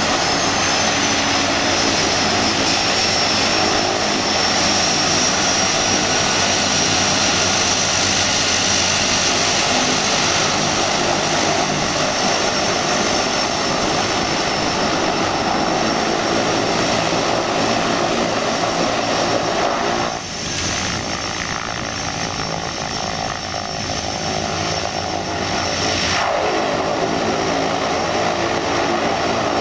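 A de Havilland Canada DHC-6 Twin Otter's two Pratt & Whitney Canada PT6A turboprop engines running with the propellers turning as the floatplane taxis on the water: a steady drone with a high turbine whine over it. About two-thirds of the way through the sound drops off briefly, then builds back up.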